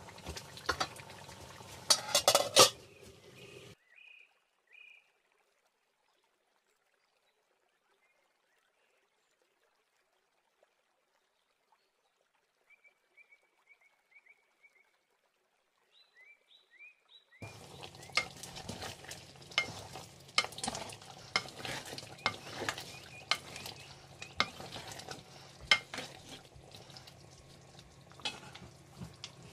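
Wooden spoon stirring a simmering mutton and potato curry in a metal pan, with sharp clicks and scrapes of the spoon on the pan over a sizzling hiss. After about four seconds it cuts to near silence with a few faint high chirps for about thirteen seconds, and then the stirring and sizzling start again.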